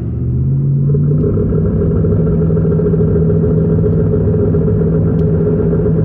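Jeep Grand Cherokee engine and 3-inch exhaust droning under load while climbing a hill, heard from inside the cab. The pitch rises over the first second, then holds steady.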